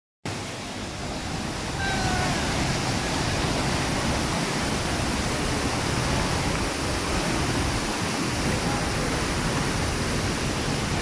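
Waterfall: a steady, even rush of falling water that grows a little louder about two seconds in.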